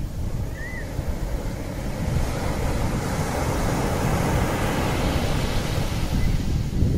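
Open-water ambience: waves washing steadily, with wind rumbling on the microphone. It grows a little louder a couple of seconds in, and one short high chirp sounds just under a second in.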